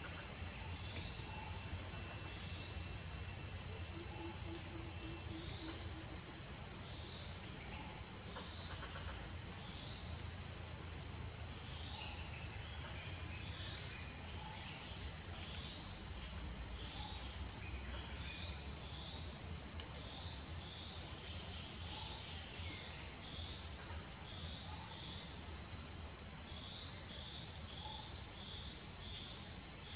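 Insects droning in chorus: a loud, steady, high-pitched buzz that holds unbroken throughout.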